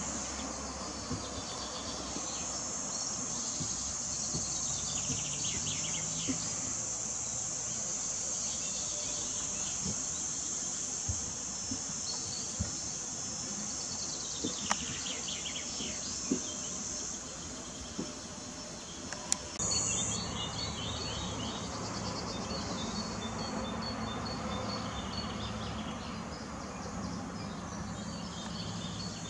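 A chorus of insects singing in a steady, high-pitched buzz, which turns fainter about two-thirds of the way through as a low hum comes in.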